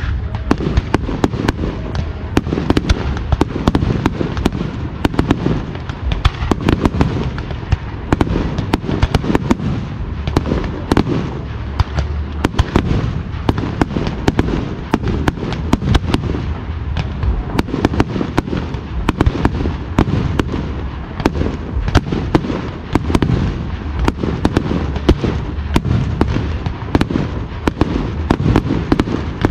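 Aerial fireworks display: a rapid, unbroken barrage of shell bursts and sharp bangs, many a second, over a deep low rumble.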